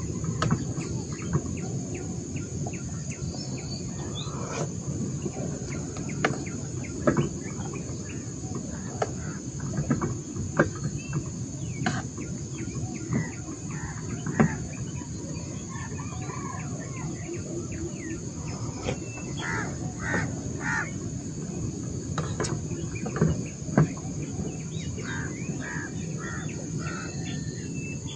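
Birds calling in short bursts of chirping notes over a steady high insect drone, with scattered sharp knocks and clicks from gear being handled in a metal boat.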